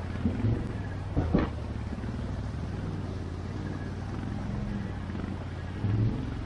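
ATV engine running steadily at low revs, with a few short knocks about half a second in, just over a second in and near the end.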